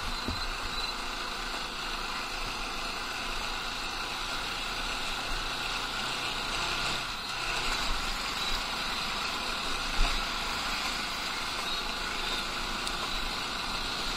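Motorcycle engine running steadily while riding slowly, with road and wind noise, and a single short thump about ten seconds in.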